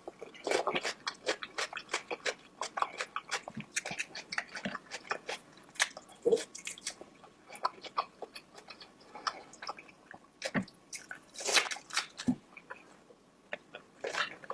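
Close-miked chewing and biting of a sauced seafood boil: a rapid, irregular run of crunches and wet mouth clicks, with a louder crunch about eleven seconds in.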